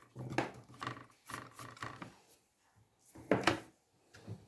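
Short scuffing and rubbing strokes from dust being cleaned off a laptop's internal parts, a few strokes a second, with one louder stroke about three seconds in.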